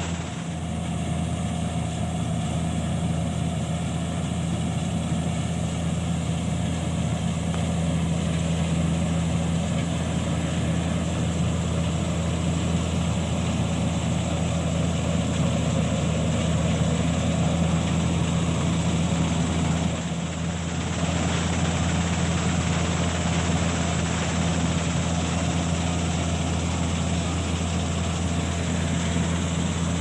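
New Holland combine harvester running steadily, a continuous heavy engine hum with a brief dip about twenty seconds in.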